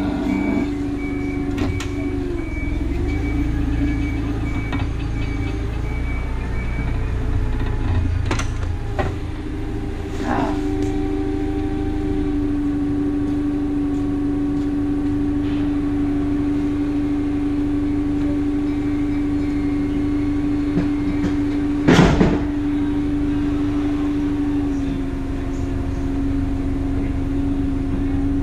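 Freightliner Cascadia semi-truck running, its engine a steady drone with a low rumble under it. A repeated high beep sounds for the first several seconds, with a few clicks and one loud sharp clunk about 22 seconds in.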